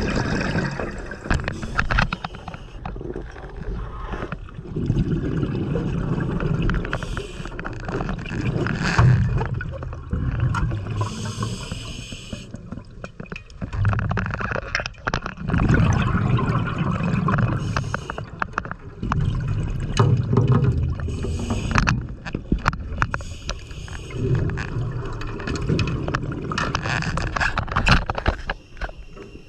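Scuba diver breathing through a regulator underwater: a hiss of each inhalation, then a gurgling rumble of exhaled bubbles, repeating every few seconds.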